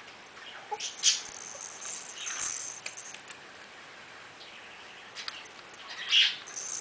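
A baby's soft-toy wrist rattle and plush toys rattling in a few short shakes as the baby waves its arms. The loudest shake comes near the end.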